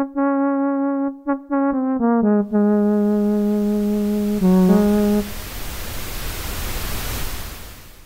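Cherry Audio Quadra software synthesizer playing its 'QuadraTron Flutes' preset: a flute-like tone steps down through a short phrase of notes, the last ones held until about five seconds in. Behind it a hiss swells up, peaks near the end, then fades out.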